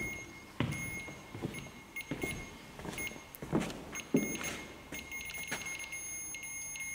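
Scattered footsteps and knocks on wooden boards as someone moves about the room, under a faint, steady high-pitched electronic whine that keeps cutting in and out.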